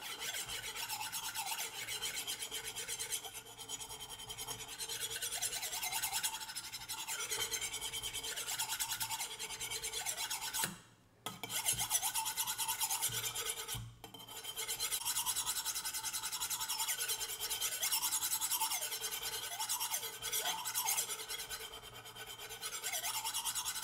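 Kitchen knife blade scraped in repeated strokes across the bottom rim of an upside-down porcelain plate, a steady rasping of steel on ceramic as the plate grinds metal off the edge to sharpen a dull knife. The rasping breaks off briefly twice in the middle.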